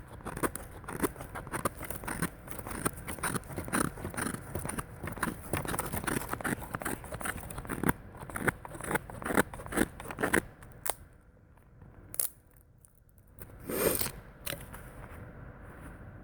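Leatherman Surge knife blade shaving curls off a birch stick: a quick run of short, irregular scraping cuts that stops about ten seconds in, then only a few separate scrapes or knocks.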